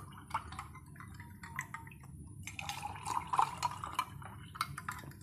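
Water poured from a jug into glasses of sharbat over ice cubes, with small clicks of ice against the glass. It pours into one glass, then into the other, which is louder from about two and a half seconds in.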